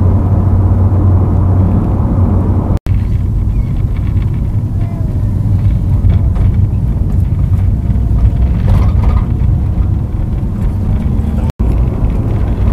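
Tour bus driving, heard from inside the cabin: a steady low engine and road rumble, cut off for an instant twice.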